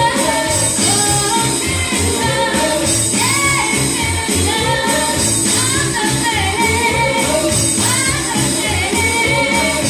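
A band playing a rock-and-roll song with a lead singer over a steady bass beat.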